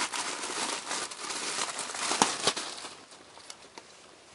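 A clear plastic poly bag crinkling and rustling, with a few sharp crackles, as a folded T-shirt is handled and pulled out of it. The crinkling dies down about three seconds in.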